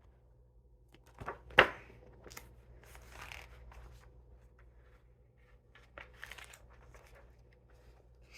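Paper pages of a picture book being handled and turned: short rustles and clicks, with one sharp knock about a second and a half in.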